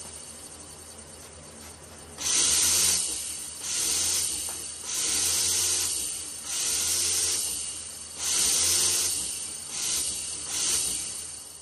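Electrostatic powder coating gun spraying powder in about seven short hissing bursts of about a second each, as the trigger is pulled and released, over a low steady hum.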